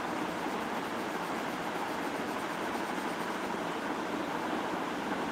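Steady background hiss with no distinct events. Over it, for the first few seconds, a pencil makes faint quick strokes on paper, shading a sketch.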